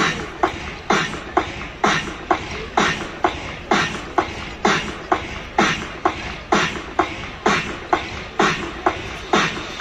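Music dominated by a steady drum beat, about two hits a second, with little melody.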